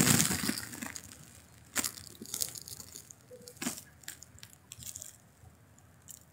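Faint rustling handling noise on a phone microphone, louder at first and fading, with a few scattered sharp clicks.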